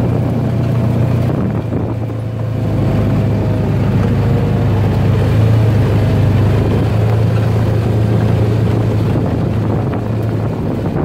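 Side-by-side UTV engine running steadily as it drives along a rough dirt track, a continuous low drone with rough road noise.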